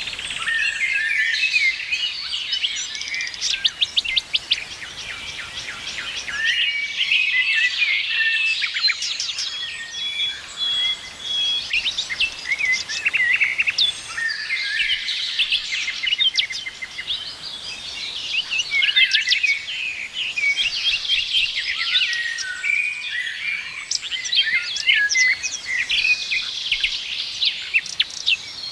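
A chorus of several songbirds singing and chirping at once, with overlapping quick trills, short whistled notes and rapid chirps that never let up.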